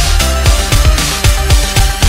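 Electronic background music with a fast beat of deep bass kicks that drop in pitch, over sustained synth notes.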